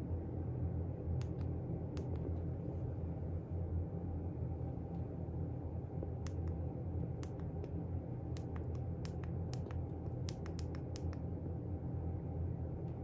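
Steady low hum with a scattering of small, sharp clicks, thickest from about eight to eleven seconds in.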